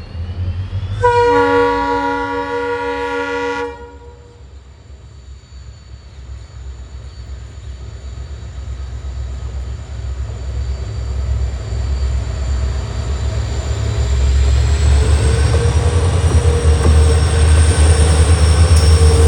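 Double-headed WDP4 diesel locomotives: a multi-tone horn sounds for about three seconds. Then the engines' low rumble builds steadily louder as they accelerate, and a whine rises in pitch in the last few seconds.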